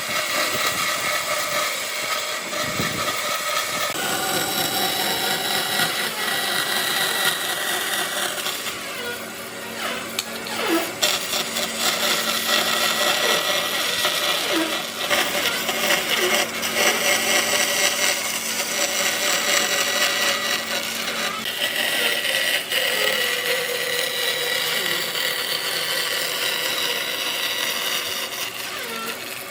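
An electric power tool running continuously on wood, a steady motor whine under the rasping noise of the work.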